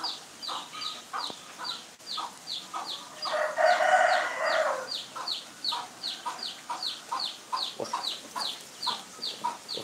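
A rooster crows once, a long call about three seconds in, over a steady run of short, high, falling chirps about three a second.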